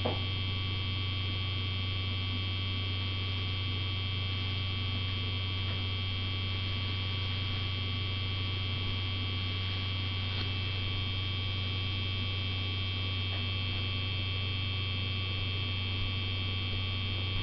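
Guitar pickup winder's spindle motor running steadily at full speed, about 4,140 RPM: a constant low hum with a cluster of high whining tones above it.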